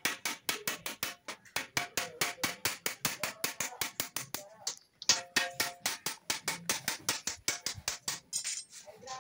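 Wooden mallet striking the edge of a steel sheet in a fast, even run of blows, about five a second, the sheet ringing with each blow, with a short pause about halfway through. The blows are folding down the sheet's edge to form the seam of a steel drum.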